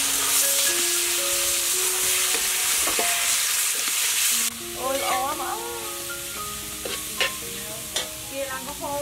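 Shrimp, ground pork and garlic sizzling in a hot wok while a metal spatula stirs them. The sizzling cuts off suddenly about halfway through.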